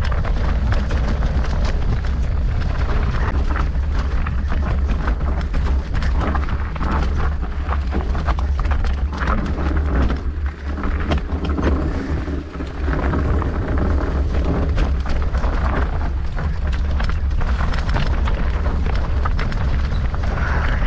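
Enduro mountain bike clattering down a rough trail, with a steady low wind rumble on the microphone and frequent sharp knocks and rattles from the bike over rocks and roots.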